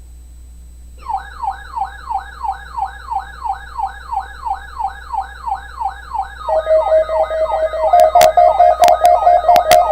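Electronic alert siren sounding in rapid repeating upward sweeps, about three a second. About two-thirds of the way in a steady tone joins and the alarm grows louder, with sharp clicks near the end.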